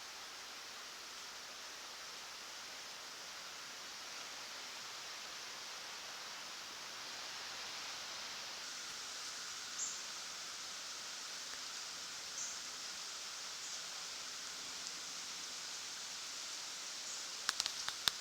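Steady rain falling, an even hiss with a few faint drips. A handful of sharp clicks comes near the end.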